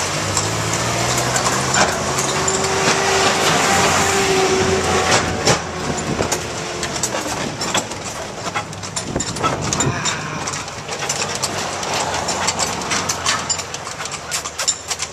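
Horse-drawn carriage rolling along a paved street: the horse's hooves clopping and the carriage rattling in a run of sharp clicks. A motor vehicle's engine hums close by for the first five seconds or so, then fades.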